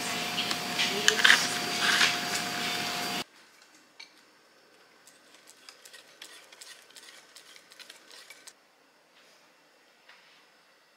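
Busy café noise, with clatter over a steady hum, that cuts off suddenly about three seconds in. Then a whisk scrapes and clicks faintly and rapidly against a bowl, mixing pancake batter, and stops a few seconds before the end.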